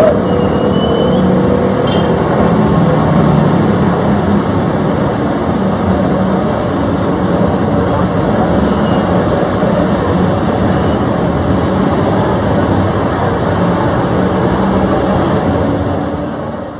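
ATR twin-turboprop airliner passing low overhead on approach, its engines and propellers making a loud, steady drone with a rushing noise, dropping away near the end.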